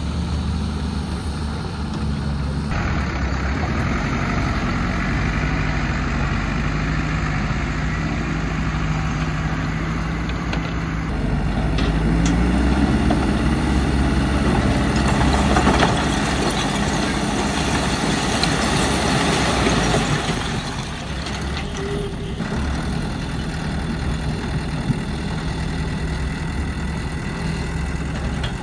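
Heavy diesel engines of an excavator and dump truck at work, running steadily. About 11 seconds in an engine revs up and works harder, easing back about 20 seconds in.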